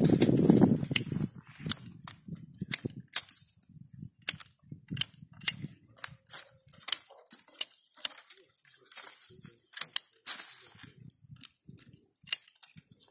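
Hand pruning shears cutting custard apple twigs: a string of sharp clicks and snaps, roughly one or two a second, over a brief rustle of branches in the first second.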